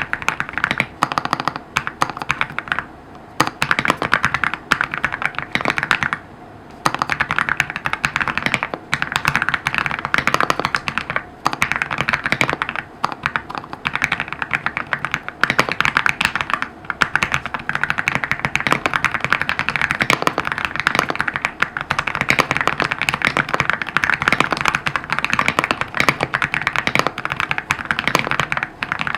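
Fast typing on an EPOMAKER x AULA F65 mechanical keyboard with LEOBOG Grewood v3 switches: a dense run of key clicks, broken by brief pauses about three seconds in and around six seconds in.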